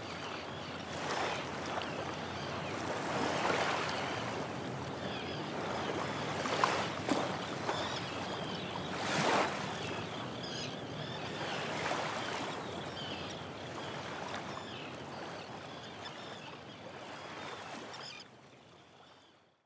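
Sea waves breaking and washing over a rocky beach, a steady rush of surf that swells every few seconds, then fades out near the end.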